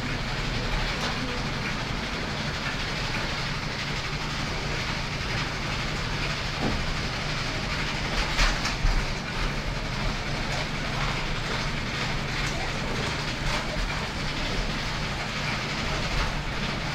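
Farm machinery running steadily with a rattling clatter, with a few sharper knocks about halfway through.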